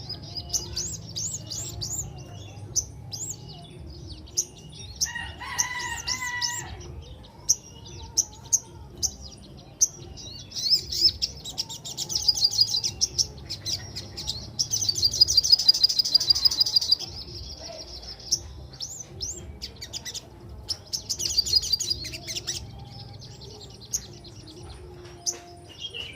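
A little spiderhunter (sogok ontong) singing: a string of sharp, high chirps broken by fast rolling trills, the longest and loudest just past the middle. About five seconds in there is a lower call with several pitches stacked together.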